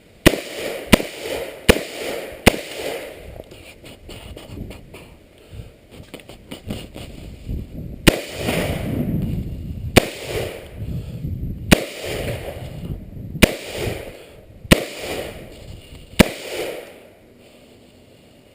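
AR-15 pistol in 5.56/.223 firing ten shots, each a sharp crack followed by a short echo. Four come in quick succession about a second apart, then after a pause of several seconds six more are spaced a second and a half to two seconds apart.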